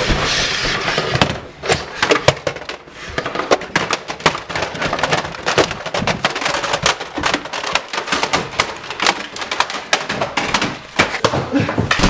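A rapid, irregular run of sharp gunshot-like cracks and thuds: dubbed gunfire sound effects for a Nerf blaster shootout.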